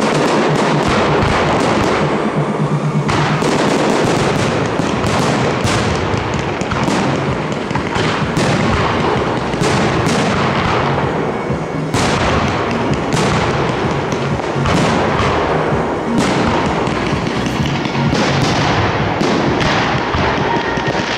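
Fireworks display: a dense, continuous barrage of bangs and crackle as fans of comets, mines and aerial shells fire, with show music underneath.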